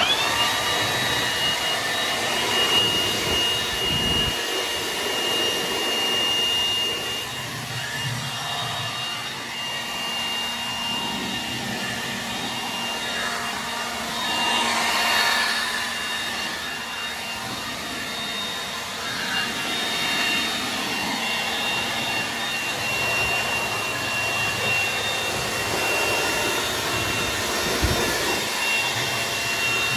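Milwaukee M18 cordless blower running steadily, a rush of air with a constant high motor whine, blowing water off a wet boiler control.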